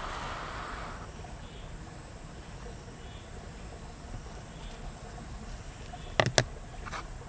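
Butane torch lighter's jet flame hissing as it lights a mosquito coil, cutting off about a second in. Near the end, two sharp knocks close together and a fainter third one, as the lighter and the coil's wooden holder are set down on the table.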